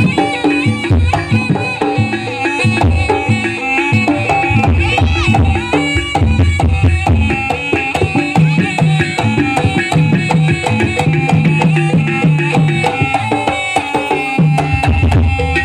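Javanese gamelan accompaniment for a barong and kucingan dance: hand drums beat a dense, steady rhythm under held melodic tones.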